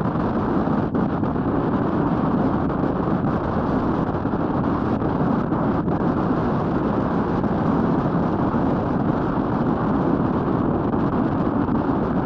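Steady wind rush on the microphone of a moving Royal Enfield Meteor 350 motorcycle, with the bike's running and road noise mixed in.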